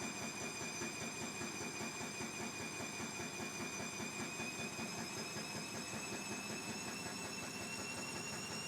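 Bosch Classixx 6 Vario Perfect washing machine spinning up, its motor whine climbing slowly in pitch over a rumbling, pulsing drum. The spin is running with an unbalanced load after the balance sensor gave up.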